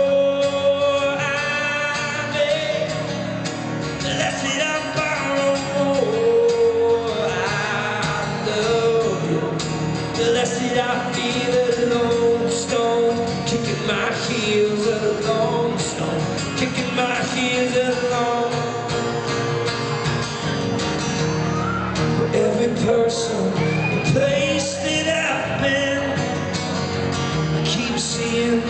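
A man singing live while strumming a steel-string acoustic guitar, a solo acoustic performance heard from the audience.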